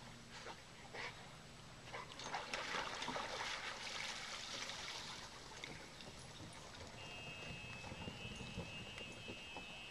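Water splashing and dripping as a wet golden retriever hauls itself up a dock ladder out of a lake. The splashing swells about two seconds in and slowly fades, and a thin steady high tone joins near the end.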